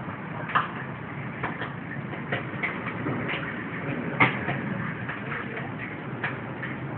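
Irregular clicks and taps over a steady background noise, the loudest about half a second in and another about four seconds in.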